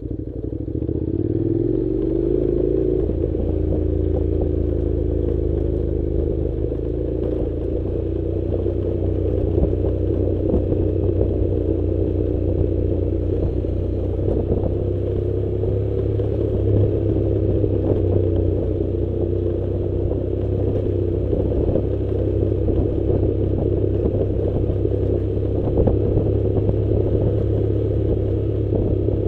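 Honda NC700's parallel-twin engine rising in pitch and level over the first two seconds, then running steadily as the bike rides down a loose gravel track, with a constant clatter and rattle from tyres and suspension over the stones.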